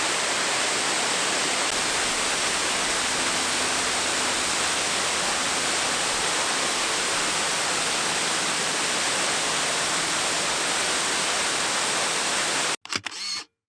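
Steady rushing of a waterfall, Hayden Run Falls, pouring over its rock ledge. The sound cuts off suddenly near the end, followed by a few faint clicks and then silence.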